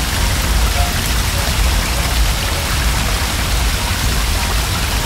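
Cartoon sound effect of a fire hose spraying water: a steady, loud rush of noise with a low rumble underneath.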